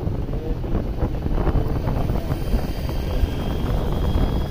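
Wind rushing over the microphone and the running engine of a moving two-wheeler, a steady rumble.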